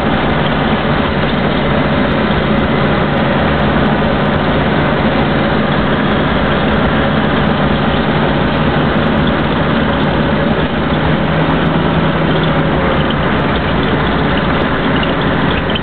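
Caterpillar D6 bulldozer's diesel engine running steadily, with a constant low hum.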